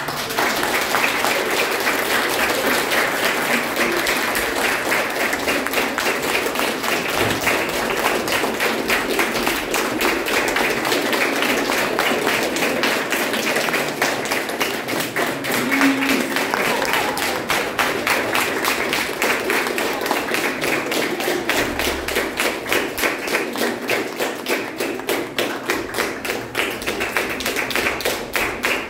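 Audience applauding, many hands clapping steadily, settling into rhythmic clapping in time near the end.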